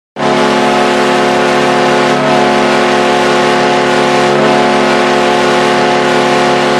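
Buffalo Sabres hockey goal horn: a loud, steady blast of several tones sounding together, starting abruptly and held unchanged.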